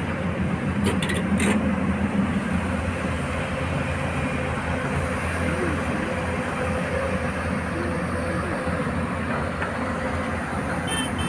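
Diesel engines of excavators and dump trucks working at an earth-moving site, a steady low drone of engines and machinery, with a few light clicks early on.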